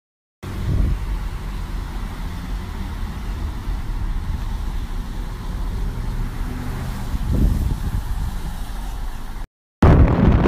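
Road noise inside a moving car: a steady low rumble of engine and tyres. Near the end, after a short break in the sound, a louder rushing wind noise on the microphone takes over.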